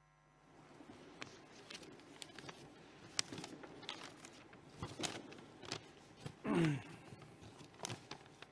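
Scattered knocks, clicks and rustles of people settling into seats at a stage table and at a lectern, over low hall noise. One short squeak falling in pitch about two-thirds of the way through is the loudest sound.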